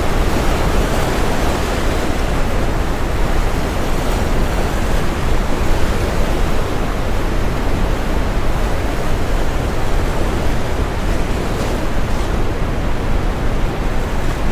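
Steady brown noise mixed with ocean waves breaking on a shore: a dense, even rush of noise with a strong deep rumble.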